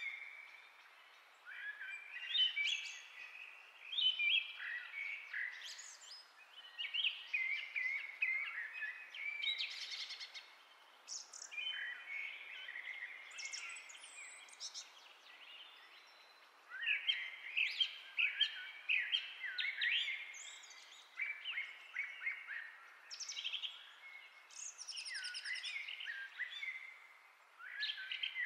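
Several songbirds chirping and trilling in overlapping phrases, coming in bouts of a few seconds with brief lulls between.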